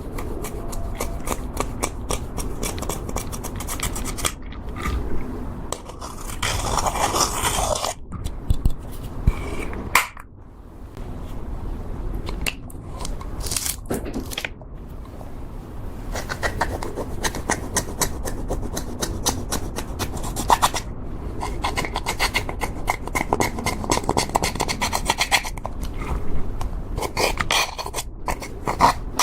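Slime being squished, stretched and folded by hand as makeup is mixed into it, with dense sticky crackling and popping throughout.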